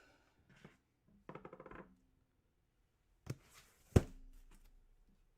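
A quick run of clicks, then a single sharp click and, about a second later, a louder knock that rings on briefly.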